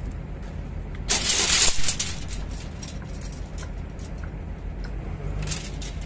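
A crane-hung bundle of steel rebar clatters as it settles onto the concrete slab about a second in, bars clanking together for under a second, followed by scattered lighter metal clinks. A steady low engine hum runs underneath.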